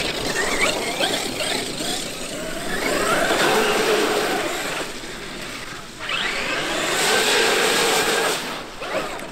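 Traxxas X-Maxx electric RC monster truck driven hard, its brushless motor and drivetrain whining and rising in pitch in two surges, about three and six seconds in, over a hiss of water spraying from its tyres in puddles.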